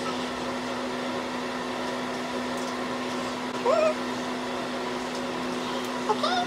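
A steady electrical hum with a soft whir of room noise underneath. A woman makes a short rising vocal sound about four seconds in and another just before the end.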